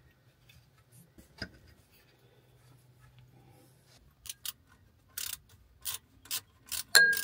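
Socket wrench ratcheting in short strokes on a heater-hose fitting: a run of sharp clicks about two a second starts a little past halfway. Near the end comes a single sharp, ringing metal clink, the loudest sound.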